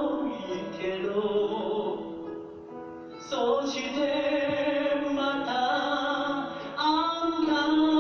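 A man sings long held notes into a microphone, backed by acoustic guitar. The singing softens a couple of seconds in, and a new phrase starts about three seconds in.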